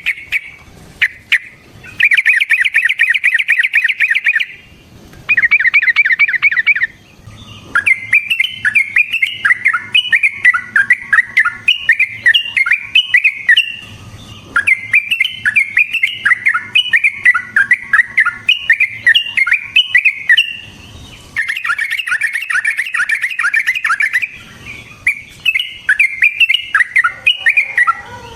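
Yellow-vented bulbul singing loudly and continuously. Short bursts of fast rattling trills alternate with a long run of quick, bubbly warbled phrases, and another trill burst comes near the end. This is the long rolling 'ropel' song used as a lure to set other bulbuls singing.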